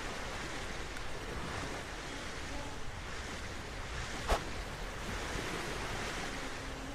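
A steady wind-like hiss, with a single short sword swish about four seconds in.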